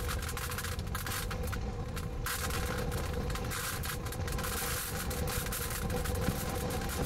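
Wind buffeting a vehicle and rain spattering its windows, heard from inside the cabin as a steady low rumble with a fluttering hiss, over a faint steady hum from the vehicle.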